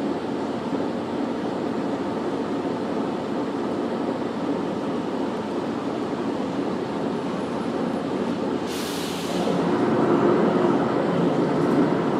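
City bus heard from inside, running steadily with engine and road noise. About nine seconds in there is a short burst of hissing, after which the engine and road noise get louder.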